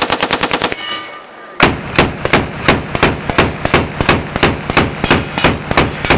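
Unsuppressed AR-pattern rifle firing on full auto: a fast burst that ends under a second in, then after a short pause a long string of shots at about three a second. The rifle is running dirty without its suppressor and is cycling slowly.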